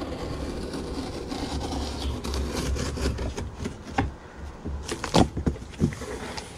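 Scissors drawn along the packing tape on a cardboard box, slitting it open with a steady scraping, then several sharp knocks and taps on the box about four to six seconds in, the loudest just after five seconds.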